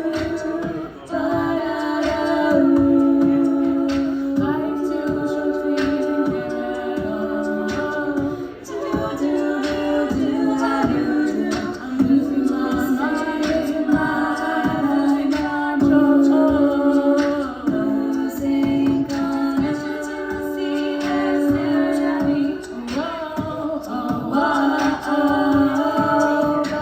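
Several voices singing a song together in harmony, unaccompanied.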